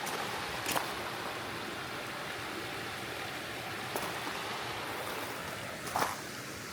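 Creek water flowing with a steady rushing, broken by a few short sharp knocks: about a second in, about four seconds in and near the end.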